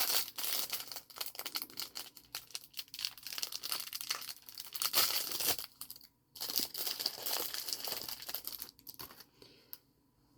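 Plastic packaging crinkling and tearing as a surprise toy packet is unwrapped by hand, with a short pause about six seconds in before the crinkling fades away near the end.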